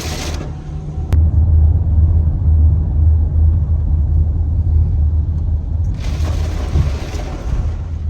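Heavy rain hissing over a loud low rumble. The hiss drops away about half a second in, leaving mostly the rumble, and comes back about six seconds in.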